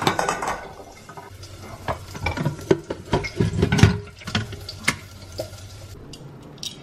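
Glass lid and pot of an electric rice cooker being handled after the rice is washed: a series of clinks and knocks over a little water sloshing, busiest at the start and again through the middle.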